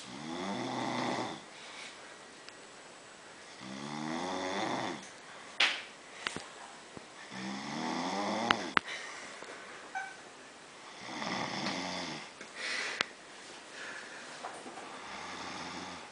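Snoring: five snores on the in-breath, about one every three and a half to four seconds, each rising in pitch. A few short, sharp clicks fall between the snores and are the loudest sounds.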